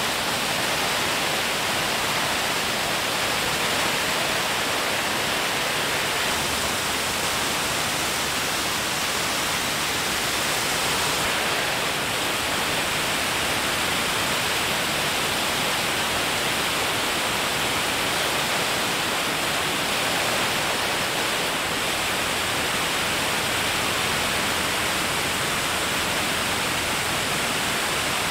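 Steady rushing noise of air over the microphone in flight, even and unbroken, with no engine tone, rhythm or voices standing out.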